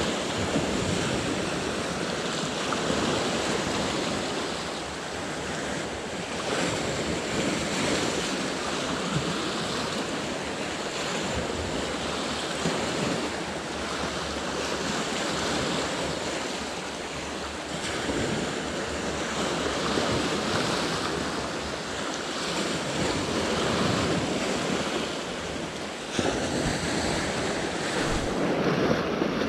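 Sea surf washing in and drawing back in slow swells, with wind on the microphone.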